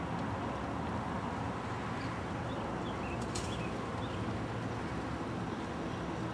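Steady outdoor background noise with a low rumble and a few faint short chirps. A brief sharp sound comes a little over three seconds in.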